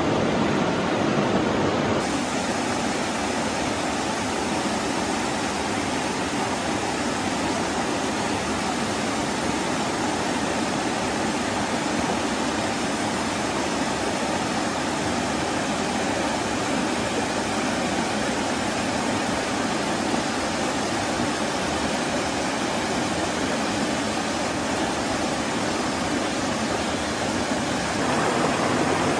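Small waterfall pouring into a rock pool: a steady rush of falling water.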